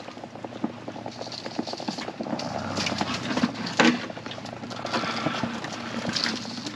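Ice at a boat ramp crunching and clinking as it is broken up: a run of irregular cracks and knocks, with one sharper knock about four seconds in.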